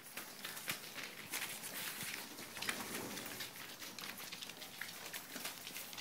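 Cavalier King Charles spaniel puppies scrabbling about on newspaper: a steady crackle of rustling paper and small scratching clicks.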